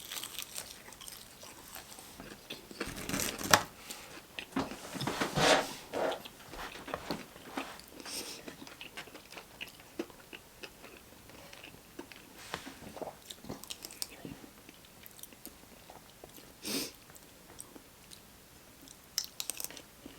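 A person biting and chewing crunchy Popeyes food close to the microphone, with irregular crackling crunches that are loudest about three to six seconds in.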